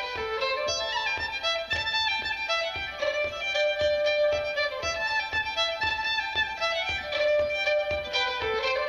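Unaccompanied solo fiddle playing a fast traditional Irish–Scottish folk tune: a continuous run of quick bowed notes.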